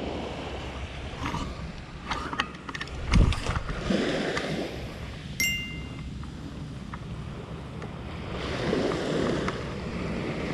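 Rod and spinning reel being handled on a beach: scattered clicks and knocks, a heavy thump about three seconds in, and a short metallic ring a little after five seconds. Underneath are small waves washing on the shore and wind on the microphone.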